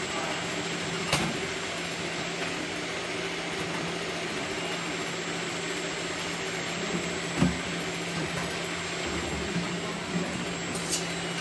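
Bottle labelling machine and its conveyor running with a steady hum. Over it, a sharp knock about a second in and a louder thump about seven seconds in, as hollow plastic jerrycans are handled off the conveyor.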